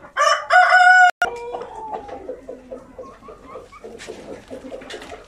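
Light Sussex rooster crowing once near the start, about a second long, cut off suddenly. Hens cluck softly after it.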